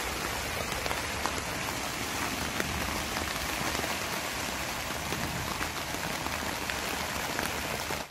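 Heavy rain pouring onto a touring caravan, heard from inside: a steady hiss dotted with many separate drop taps.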